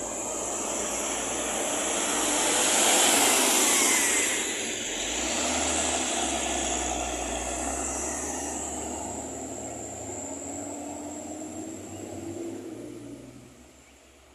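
A heavy vehicle passing close by on the road: tyre and engine noise swells to a peak about three seconds in, then fades slowly as it moves away, with a low engine rumble underneath.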